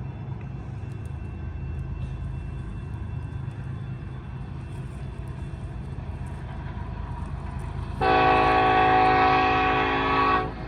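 Nathan Airchime K5LLA five-chime horn on a Union Pacific EMD SD70ACe locomotive sounding one long blast of about two and a half seconds. It starts about eight seconds in and cuts off sharply, over a steady low rumble from the train.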